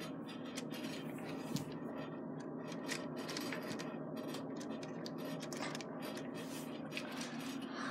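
Faint scratching and a few small clicks of plastic Lego Technic parts being handled, over a steady low hum.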